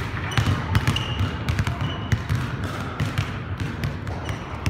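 A basketball dribbled on a hardwood gym floor: a run of bouncing thuds, with a few short squeaks from sneakers on the floor.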